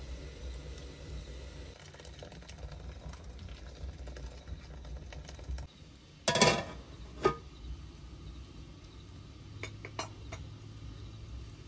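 Metal lid set down on a metal cooking pot: a brief clatter about six seconds in, then a single ringing clink a second later. A few faint clicks near the end.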